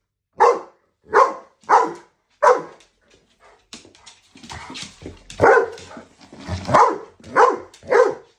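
Dog barking at a floor mop: four sharp barks in quick succession, then a few seconds of quieter scuffling noise, then four more barks in the second half.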